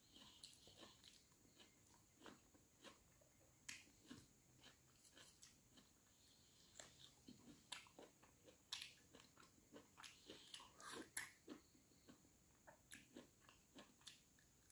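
Faint close-up eating sounds: irregular wet chewing and mouth clicks of a person eating rice by hand, with soft sticky sounds of fingers gathering rice on a banana leaf.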